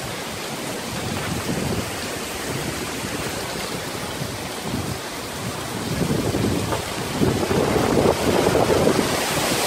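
Hurricane rain band: wind-driven rain blown as a fine spray, a steady rushing hiss with gusts buffeting the microphone. It grows louder over the last few seconds.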